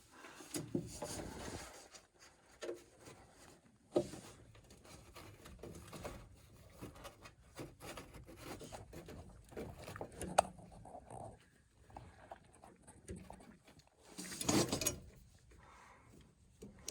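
Rubber tubing being handled and worked onto the nipple of a gas furnace's vacuum switch: faint rubbing and scraping with a couple of sharp clicks, and a louder scrape near the end.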